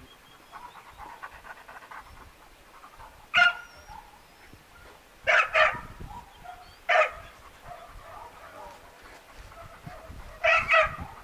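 Dog barking in short, sharp barks: a single bark, a quick double bark, another single and a final double, six in all, with softer panting between.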